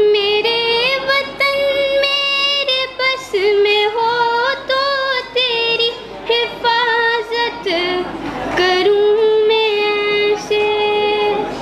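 A girl singing solo into a microphone, a single voice holding long steady notes with ornamented turns between them.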